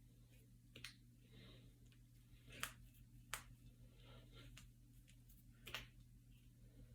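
Finger and knuckle joints cracking: a handful of short, sharp pops spaced irregularly a second or two apart, over a faint steady low hum.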